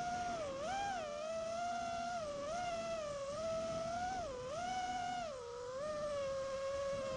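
Impulserc Alien 5-inch FPV quadcopter's brushless motors and propellers whining, heard from the camera on the quad. The pitch swings up and down repeatedly as the throttle changes, then settles to a steady whine about six seconds in.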